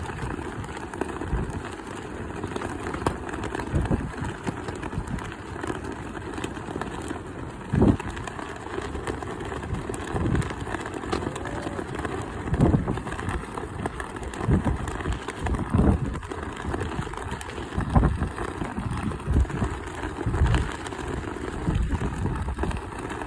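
Strong wind buffeting the microphone in repeated gusts over a steady rush of noise.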